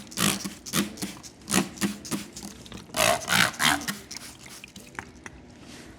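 A Brembo motorcycle brake caliper being cleaned by hand: a series of short rushing bursts, roughly two a second, with a longer one about three seconds in, then quieter after about four seconds.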